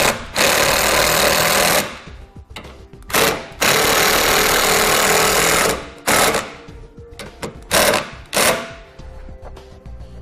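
Cordless impact driver driving self-tapping screws into the tow base plate's mounting point: two long runs of about a second and a half and two seconds, then several short bursts.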